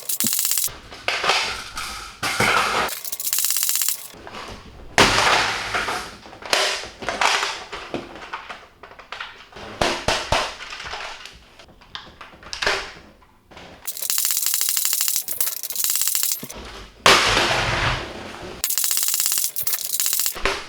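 Nerf Rival Apollo spring-powered blaster being cocked and fired over and over, a run of sharp mechanical shots and clacks.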